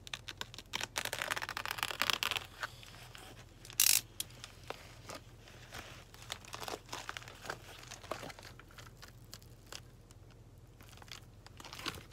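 A mailing envelope being torn open: bursts of tearing and paper rustling, with one short loud rip about four seconds in, then scattered crinkling as the envelope is handled.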